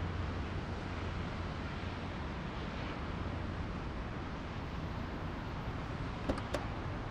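Steady road traffic noise with a low car engine hum. Two sharp clicks come close together near the end.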